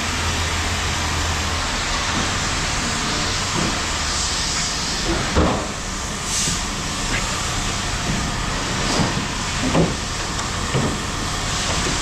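A large engine running steadily, with a few short knocks, the sharpest about five and a half seconds and ten seconds in.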